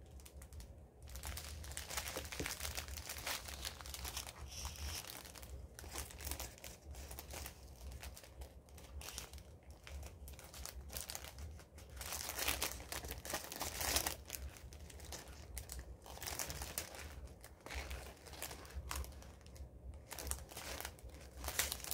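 Small plastic bags of diamond painting drills crinkling and rustling as they are handled and searched through, louder for a stretch a little past halfway.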